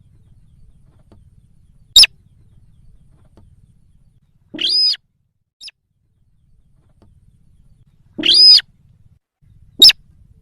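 Sintar sawah (a crake) lure call, loud and high-pitched: single sharp notes alternate with longer, fuller calls a few seconds apart.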